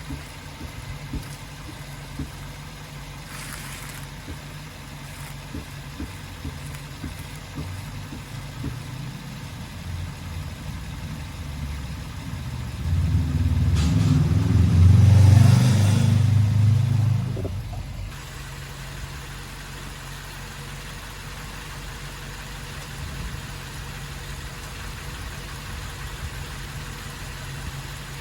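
Suzuki Jimny Sierra JB74's 1.5-litre four-cylinder engine running steadily, then revving up loudly for several seconds about halfway through before dropping back to its steady hum.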